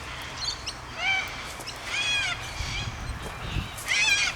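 Birds calling: three or four short, harsh calls, each rising then falling in pitch, about a second apart.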